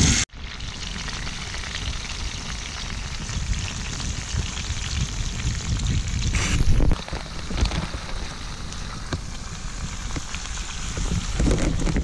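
Thick ground-beef burger patties sizzling in a pan over a campfire: an even, crackling hiss of frying, with a low rumble underneath. It swells briefly about six and a half seconds in.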